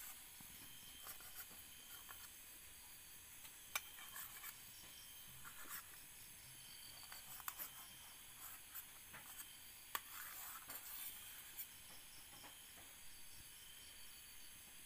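A kitchen knife cutting an omelette on a steel plate: quiet scraping and a few sharp clicks of the blade against the metal, the loudest about 4 and 10 seconds in, over a faint steady hiss.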